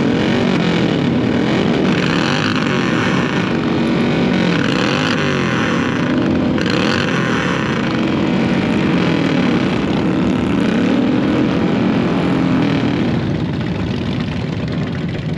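Many motorcycle engines revving together, their throttles blipped up and down at once in a loud, continuous din that eases a little near the end.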